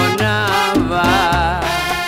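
Salsa band music, instrumental: a sustained melody note that wavers in pitch over a repeated bass line and Latin percussion.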